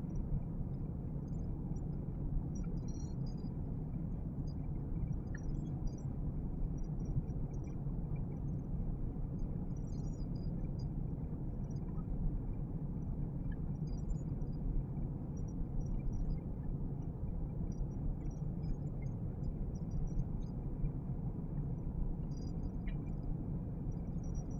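Steady low rumble, with faint, irregular scratching from a block of cheese being grated by hand on a metal box grater.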